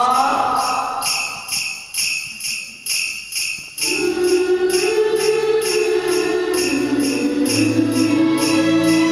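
Instrumental break in a Bollywood film song: jingle bells shaken in a steady rhythm about twice a second. About four seconds in, sustained chords and a bass line join them.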